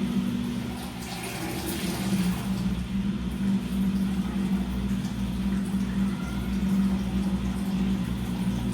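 Washing machine running: a steady low hum with water rushing and swishing through it, a little louder about one to two seconds in.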